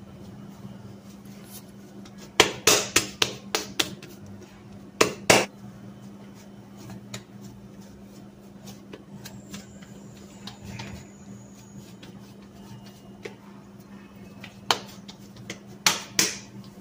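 Short sharp slaps and clicks in small clusters, about two and a half, five, fifteen and sixteen seconds in, from hands folding and shaping soft oiled bread dough over a steel bowl. A low steady hum runs underneath.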